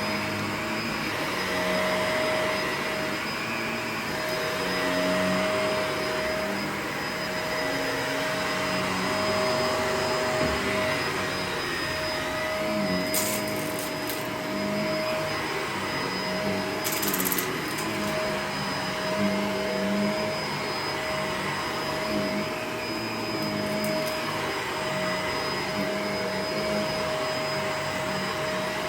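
Vacuum cleaner running steadily with a constant motor whine, with two brief high hissing rasps, about 13 and 17 seconds in.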